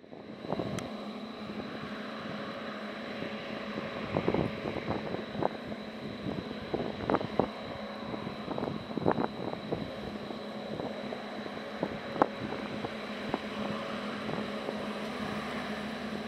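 A steady mechanical hum with a thin high whine and wind on the microphone, broken by irregular sharp knocks and clanks every second or so.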